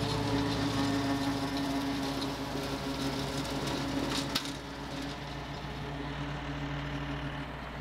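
John Deere utility tractor engine running steadily while it drives a rotary cutter mowing dry grass. A brief knock sounds a little past four seconds in.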